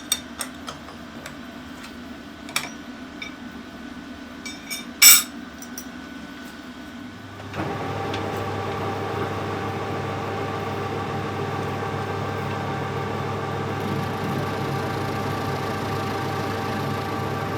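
A few light clicks and one sharper knock as the stainless part is set in the corner-radius setup. Then, about seven and a half seconds in, the machine tool's motor starts and runs steadily with a hum and a whine.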